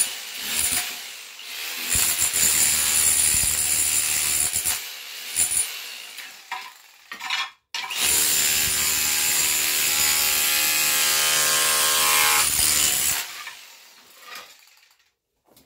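DeWalt D25133K SDS hammer drill in chisel-only mode, its chisel bit hammering under ceramic floor tiles and breaking them up. It runs in two bursts, one of about three seconds and then a longer one of about five seconds, with knocks and scrapes of loose tile pieces between them.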